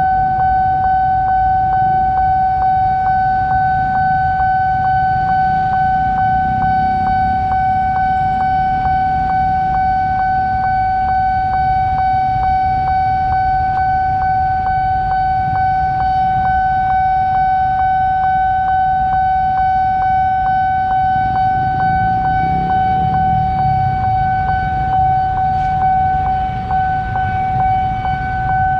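Railroad crossing warning alarm sounding one steady high electronic tone with a faint regular tick, the signal that a train is approaching and the barrier is down. Underneath is a low rumble of idling motorcycles.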